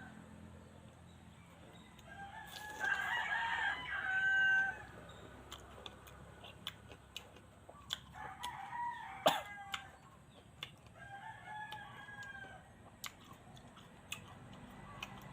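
A rooster crowing three times, each crow a long pitched call. Scattered sharp clicks run through it, the loudest about nine seconds in.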